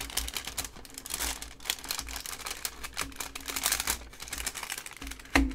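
Clear plastic bags and sleeves crinkling and rustling in the hands, with scattered small clicks. A louder knock comes near the end.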